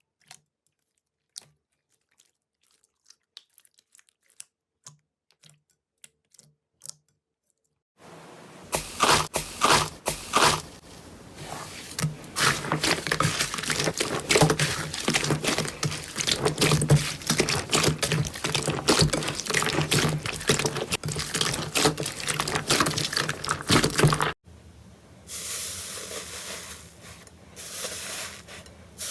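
Slime being played with: a few scattered faint clicks at first, then about eight seconds in a dense run of crackling, popping and squishing as the slime is pressed and stretched. It cuts off abruptly later on, and lighter crackles follow over a steady hiss.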